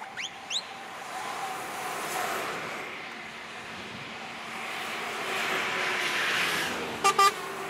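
Convoy of articulated trucks passing on a motorway: engine and tyre noise swells as a truck approaches and is loudest about six seconds in. Two quick rising chirps come right at the start, and two short blasts of a truck's air horn sound near the end.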